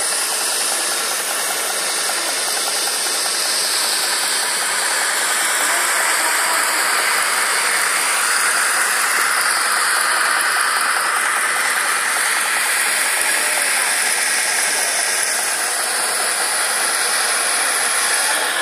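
Steady hiss of a small gas burner flame heating a homemade Stirling engine, with the engine's rapid mechanical ticking running underneath.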